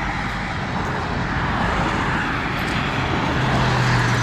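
Loud road traffic: cars driving past with a steady rush of tyre and engine noise. A low engine hum comes in about three seconds in as a vehicle passes close by.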